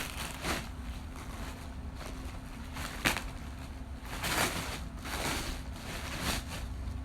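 Packaging rustling and crinkling in irregular handfuls as a wrapped item is handled, with one sharp click about three seconds in, over a steady low hum.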